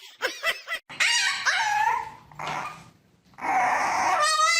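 A dog vocalizing: a few short calls in the first second, then two long drawn-out calls that bend in pitch, with a short pause between them.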